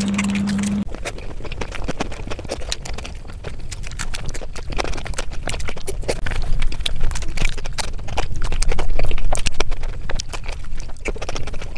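Close-miked mukbang eating: rapid wet chewing and lip-smacking of saucy rice and curry eaten by hand, loudest near the end. A steady low hum cuts off about a second in.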